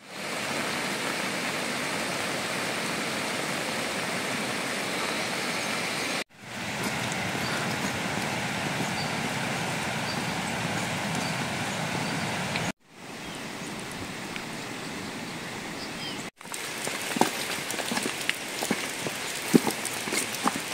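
Steady rush of rain and running stream water, cut off abruptly three times as the sound changes. In the last few seconds, separate raindrops patter and tick over it.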